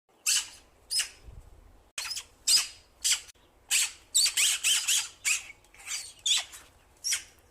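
A small bird chirping repeatedly: about a dozen short, sharp, high-pitched calls, each dropping quickly in pitch, coming about twice a second and bunching closer together a little past the middle.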